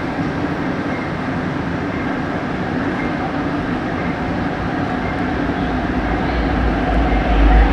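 Seoul subway train running with steady noise and a faint hum, and a low rumble that swells over the last two seconds.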